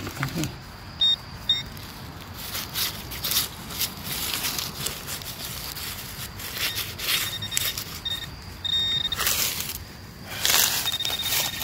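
Digging a small hole in soil, with scraping and knocking of the digging tool in the dirt, and a metal detector sounding short high beeps over the target: a pair about a second in, several more later, and a quick pulsing run near the end.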